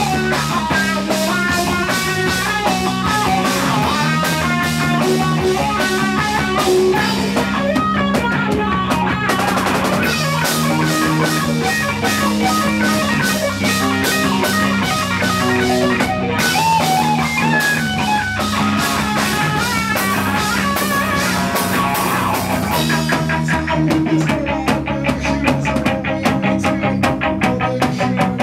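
Rock band playing an instrumental passage: a Stratocaster-style electric guitar plays melodic lines over a drum kit.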